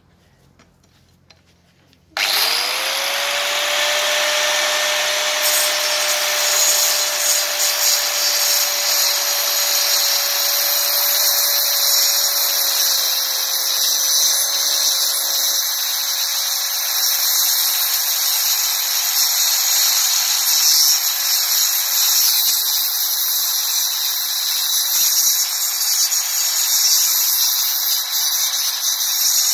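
Makita angle grinder fitted with a toothed wood-cutting saw blade, switched on about two seconds in: it spins up quickly to a steady high whine and saws through a wooden board, the whine dipping briefly several times as the blade bites into the wood.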